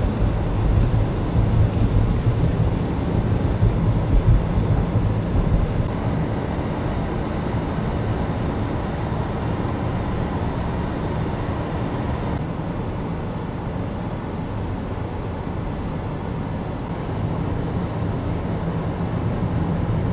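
Steady road and engine noise heard from inside a moving vehicle's cabin as it drives along a road.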